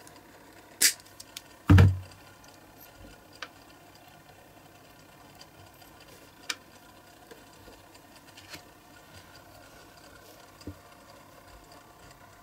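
Cutting pliers snipping through the old crimped axles of a small die-cast model car: two sharp snaps about a second apart, the second with a dull knock. A few faint clicks follow as the small metal wheels and body are handled.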